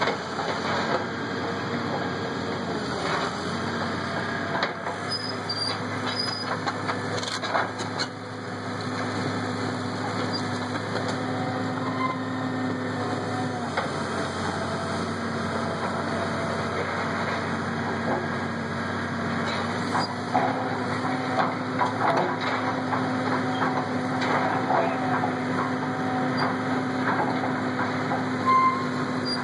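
Hydraulic excavator's diesel engine running steadily, its pitch shifting a little about halfway through, with scattered cracks and clatters of brick and timber rubble being crushed and moved, more frequent in the later part.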